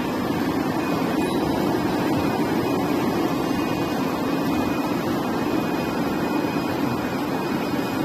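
Semi-automatic bubble washing machine running: its air blower and the bubbling water in the tub make a steady rushing noise with a faint high whine.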